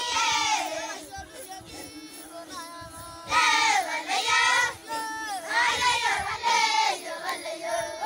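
High-pitched singing, like a child's voice, over music with a steady held low note, coming in sung phrases with the loudest in the middle of the stretch.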